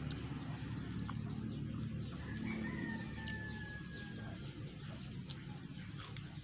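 A rooster crowing once in the background, one drawn-out, slightly falling call of about two seconds starting a little past two seconds in, over soft mouth clicks of chewing strawberries and a steady low hum.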